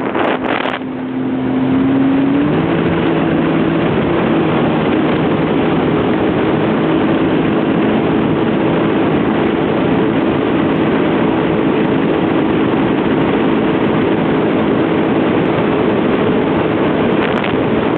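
Jet ski engine speeding up about two seconds in, its pitch rising, then running steadily at speed, over a constant rush of wind and water spray.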